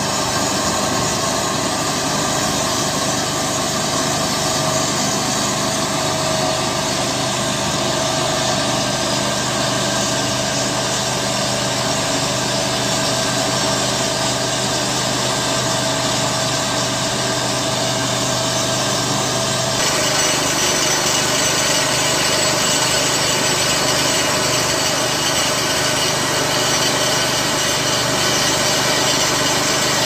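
Portable band sawmill running steadily, its small engine driving the band blade through a log. About two-thirds of the way through, the sound switches abruptly to another band mill sawing, with more high hiss from the cut.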